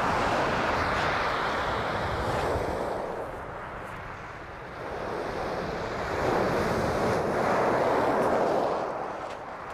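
Small waves breaking and washing up a shingle beach, the surf swelling loud twice with a quieter lull between.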